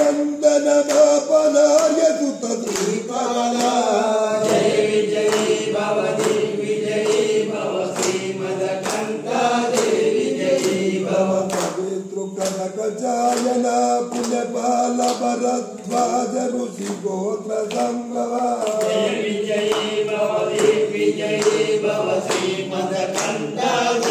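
Devotional music: voices chanting in long held notes over a steady beat.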